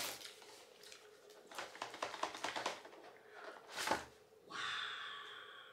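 Cardboard and plastic packaging handled as a boxed knife is opened: a run of small crackles and taps, a sharper knock about four seconds in, then a longer rasping sound that fades near the end.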